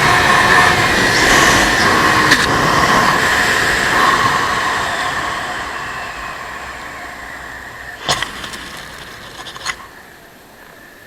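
Suzuki GSX-R sportbike riding at speed: engine and wind noise with a whining tone that dies away steadily over the second half as the bike slows. Two sharp clicks come near the end.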